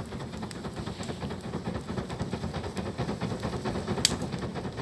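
A fire being stoked into a blaze: a steady, fluttering rush of air and flame, with one sharp crack about four seconds in.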